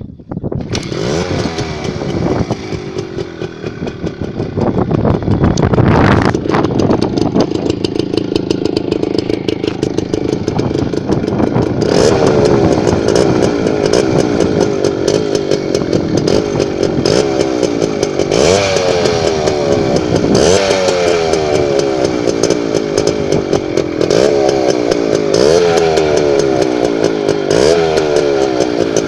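Suzuki engine starting up and running, then revved again and again from about twelve seconds in. Each throttle blip jumps the pitch up and lets it fall back, every couple of seconds.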